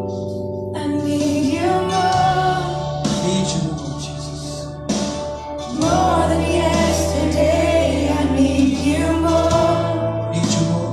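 Gospel worship music: voices singing a wavering melody over a band with sustained bass notes that shift pitch every few seconds.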